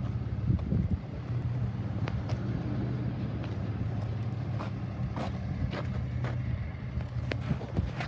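A steady low motor hum, with footsteps crunching on gravel about every half second in the second half.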